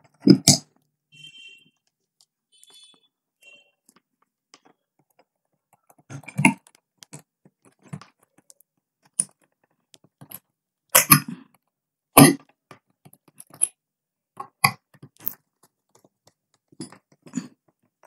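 Scattered clicks and small knocks of hands and a screwdriver working a wire into the terminal screws of a plastic switch-socket board. They are sparse at first and come thicker and louder in the second half.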